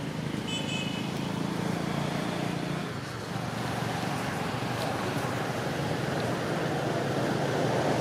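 Steady rushing outdoor background noise, with a brief high chirp about half a second in.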